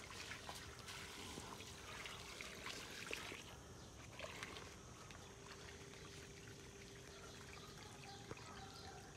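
Faint trickle of water running from a garden hose onto mulched soil, with scattered small ticks.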